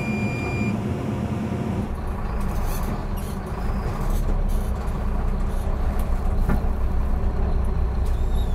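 Diesel engine of a Mercedes-Benz Zetros off-road truck heard from inside the cab as the truck sets off, a steady low rumble that gets louder and deeper about three and a half seconds in. A short electronic beep sounds at the very start.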